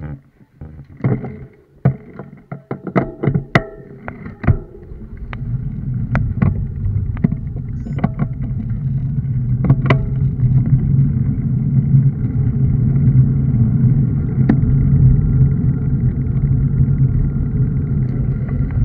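Sharp clicks and knocks from the road bike and its rider as it sets off, then a steady low rumble of wind and road noise on the bike-mounted camera, growing louder from about five seconds in as the bike picks up speed.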